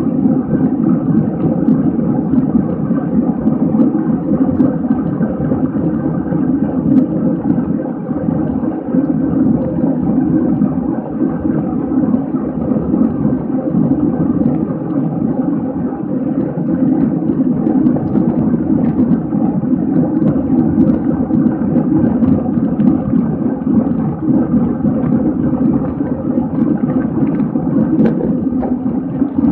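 Steady wind rush on the camera microphone with tyre and road noise from a road bike riding at racing speed.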